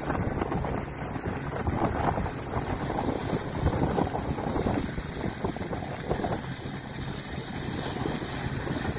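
Wind buffeting the microphone over the low, distant engine rumble of off-road SUVs climbing a slope.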